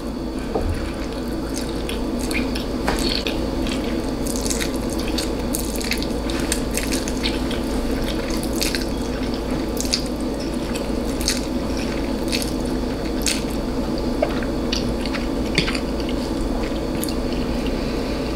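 Close-miked wet mouth sounds of a person eating spicy noodles: irregular smacks and clicks of chewing and licking, over a steady low hum.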